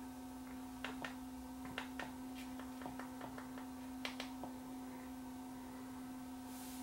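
A steady low electrical hum with a string of faint, separate clicks over the first four and a half seconds: remote-control buttons being pressed to navigate a TV menu.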